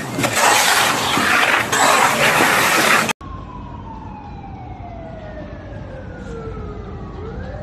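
A loud, even rushing noise for about three seconds, cut off abruptly. Then a fire engine's wailing siren, its pitch sliding slowly down for about four seconds and starting to rise again near the end.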